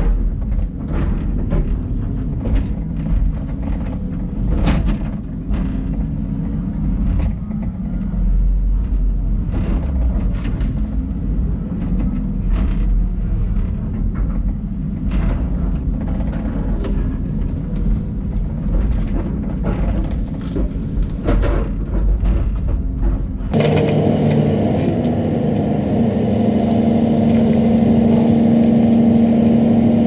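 LiuGong hydraulic excavator engine running under working load, heard inside the cab as a deep rumble with frequent sharp knocks and cracks. About 23 seconds in the sound changes abruptly to the engine's steady drone heard outside the cab, with a strong hum.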